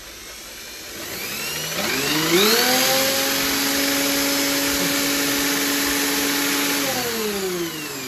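A corded electric drill spinning a single car supercharger: the whine climbs about a second in, holds steady, then winds down near the end. A rush of air comes from its outlet, with the supercharger turning at about the speed it would run at engine idle.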